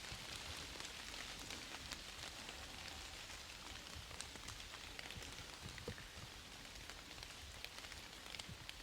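Light rain pattering on forest leaves: a steady soft hiss dotted with scattered drip ticks.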